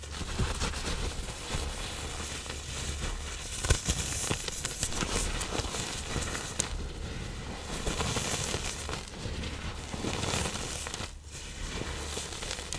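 Reformed blocks of pressed iron oxide powder and cornstarch being crushed and crumbled: a steady gritty crackling full of small cracks, with one sharper crack about four seconds in.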